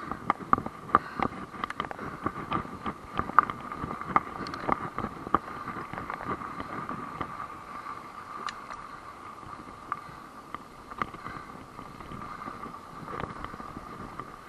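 Mountain bike rattling and clattering as it rolls fast down a rough, rocky dirt trail: rapid knocks from the chain and frame, thickest in the first half, over a steady high buzz.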